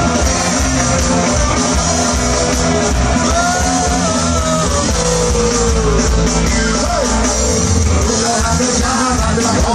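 Ska band with a horn section playing loud and live over a stage PA, with a singer's voice over the horns, guitars and drums.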